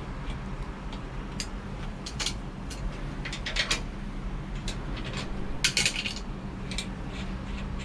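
Chrome mixer faucet clinking against its brass wall connectors as it is fitted into place by hand: a string of light metallic clicks and clinks, the densest cluster about six seconds in.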